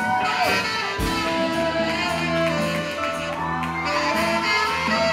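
Jazz-style band music with horn lines playing held notes that slide into and out of pitch over a steady low bass line.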